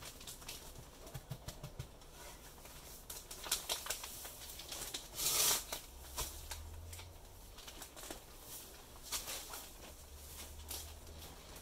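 Rustling and crinkling of a large sack of fumed silica filler being handled and set down, with scattered light clicks and a louder swish about five seconds in.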